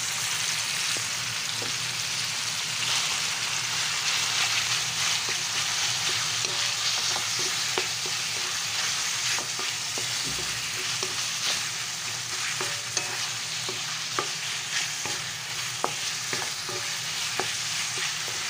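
Raw ground pork sautéing with garlic, onion and tomato in hot oil in a metal wok, sizzling steadily while a spatula stirs and breaks it up, with frequent light taps and scrapes of the spatula against the pan.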